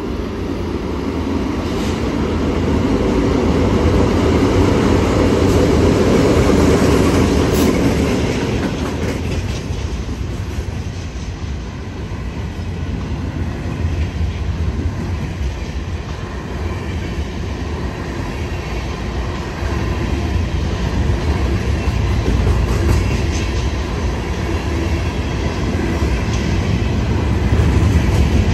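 A New York & Atlantic freight train passing close by. Its diesel locomotives go by in the first several seconds, the loudest part. Then a long string of open-top freight cars rolls past with a steady rumble of wheels on the rails.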